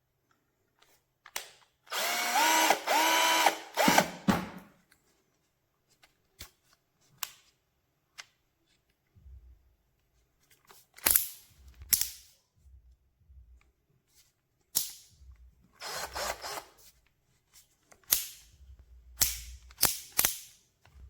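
KUZUPRO 21V cordless drill-driver's motor run in two short bursts a couple of seconds in, each spinning up in pitch. Scattered clicks and knocks of the tool being handled follow.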